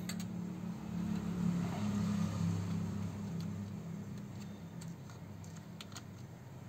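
Low droning hum that swells for a couple of seconds and then fades away, with a few faint clicks of plastic keyboard parts being handled.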